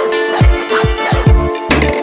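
Background electronic music with a steady beat: deep bass kick drums that drop in pitch, crisp hi-hat ticks and held synth chords.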